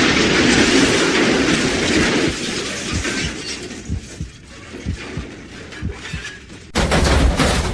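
Car crash sound effect: a loud smash with breaking glass that dies away over a couple of seconds into scattered clattering of debris. A second loud burst cuts in near the end.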